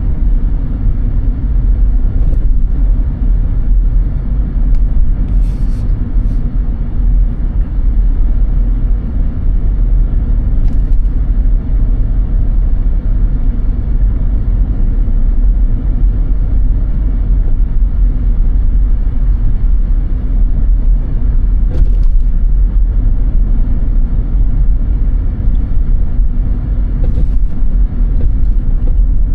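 Car driving on snow-covered roads: a steady low rumble of engine and tyres, with a few faint short ticks scattered through.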